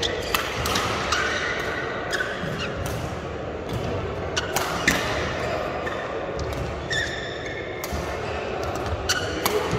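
Badminton rally: sharp racket strikes on the shuttlecock at uneven gaps, some in quick pairs, with shoe squeaks on the court floor between them. The hits echo in a large hall.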